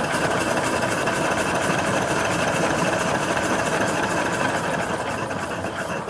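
Small steam engine running steadily with a fast, even beat and a rushing steam sound. It eases slightly about five seconds in.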